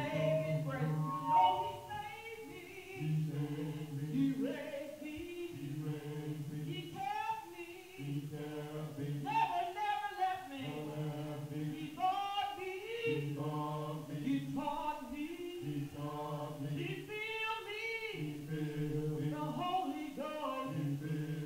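Voices singing a hymn a cappella, without instruments: a run of held notes with a wavering vibrato, phrase after phrase.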